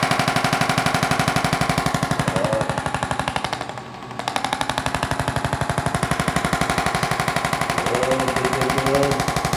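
Rapid, even mechanical pulsing, many beats a second, with a short dip a little before the middle.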